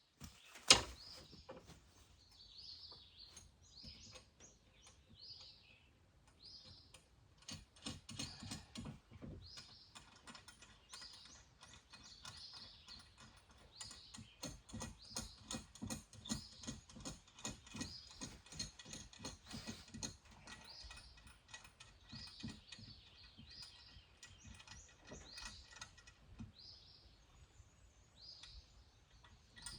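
A ratcheting hand tool clicking in quick runs while tightening up the sawmill feed works' wire rope rigging, after a single sharp metal clack about a second in. Birds chirp throughout.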